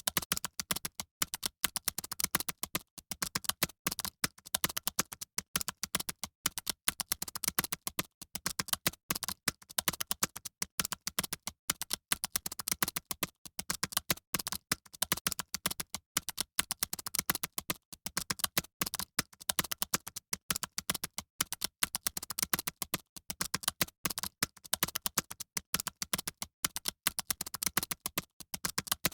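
Fast, continuous typing on computer keyboards: many irregular key clicks, several keyboards at once, like an exam hall full of typists.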